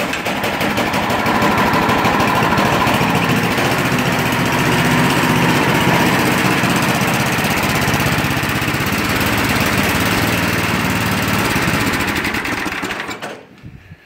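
Snowblower's single-cylinder engine running steadily with a fast, even firing rhythm, just after a cold pull start with the choke on. It dies away about a second before the end.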